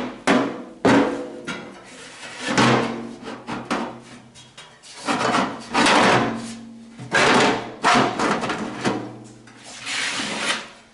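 Sheet-metal blower housing knocking and scraping on a wooden workbench as it is turned over and shifted into place: a string of irregular clunks, some with a brief metallic ring.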